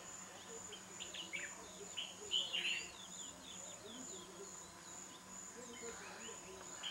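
Insects trilling with a steady, evenly pulsing high tone, with birds chirping and calling over it, the chirps loudest between about one and three seconds in.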